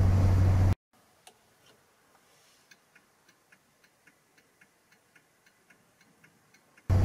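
The drone of the car's engine and road noise inside the cabin cuts off suddenly under a second in. Then a 1968 Morris Minor's indicator flasher ticks faintly and steadily, about four ticks a second.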